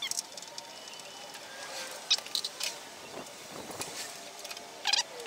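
Scattered light clicks and rattles of a screwdriver and plastic parts as a CRT TV's plastic back casing is worked on by hand, with a cluster of clicks about two seconds in and another near the end.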